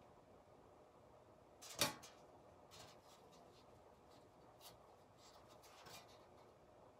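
Near silence with faint handling noises as a tin roof tile strung with twine is lifted and turned, and one sharp tap about two seconds in.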